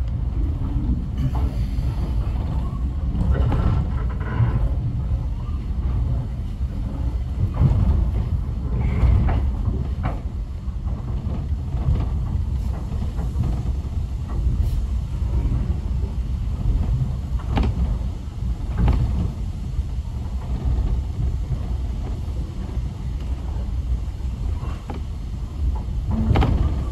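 Steady low rumble of a heritage railway passenger carriage rolling slowly, heard from inside the carriage, with occasional short clunks and knocks.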